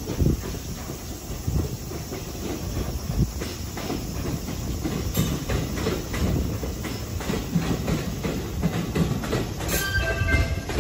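JR West 223 series electric multiple unit rolling through a rail yard on a shunting move. Its wheels clack over rail joints and points above a low rumble that grows louder as it approaches, and a few brief high tones sound near the end.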